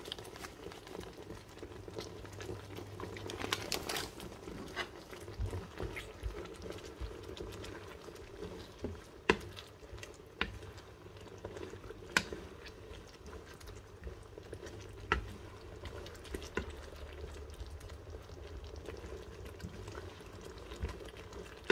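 Thick pork-and-beans stew in a frying pan simmering and bubbling, stirred with a wooden spatula, with a few sharp clicks scattered through. A steady low hum runs underneath.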